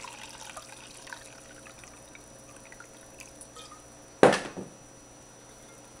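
A single sharp knock about four seconds in, over faint scattered small ticks.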